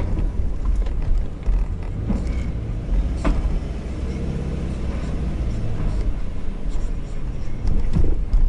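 Subaru XV's flat-four engine and tyres running at low speed, heard from inside the cabin as a steady low rumble. A few short knocks sound, the clearest about three seconds in and another near the end.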